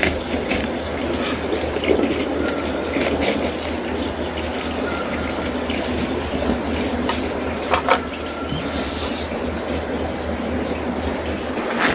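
Outdoor ambience with an insect calling in one steady high-pitched tone, broken off briefly twice. Under it is a dense even hiss, with a few scattered short clicks.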